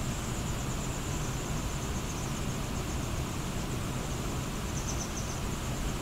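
Steady rushing of a waterfall and river, with a faint, high, rapid cheeping over it, getting a little busier about five seconds in: grey wagtail nestlings begging as a parent feeds them.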